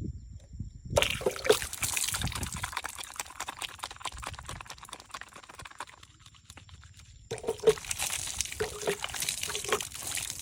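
Water pouring and splashing in a thin stream. It starts about a second in, stops briefly about six seconds in, then starts again.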